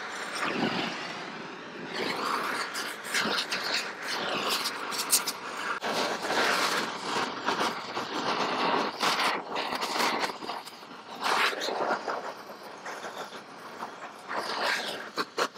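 Oxy-fuel welding torch flame hissing and crackling against a cast iron casting as flux burns off, the noise swelling and dropping unevenly as the torch is worked over the weld.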